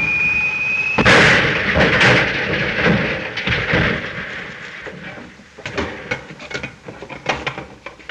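A high whistle, rising slightly, cut off about a second in by a loud explosion that dies away slowly over several seconds: a film sound effect of a large cannon shell's flight and blast. Near the end come a scatter of short knocks.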